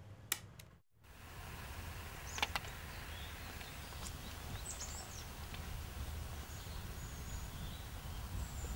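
Outdoor ambience: a steady low background rumble with a few short, high bird chirps. A sharp click comes about two and a half seconds in.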